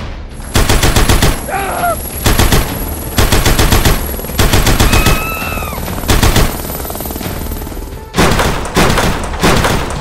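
Machine-gun fire sound effect in several rapid bursts of shots, with short gaps between bursts.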